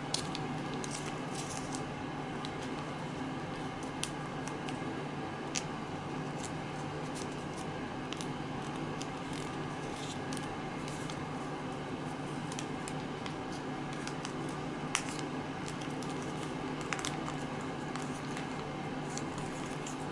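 Origami paper being handled and folded by hand: light rustling and scattered sharp crackles and ticks as the creases are pressed, over a steady hum.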